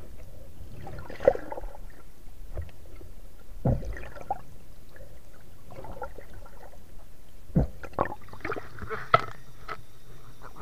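Underwater sound through a waterproof camera housing: a low muffled rumble and gurgling water, broken by several dull knocks and thuds, the sharpest about a second in and about nine seconds in.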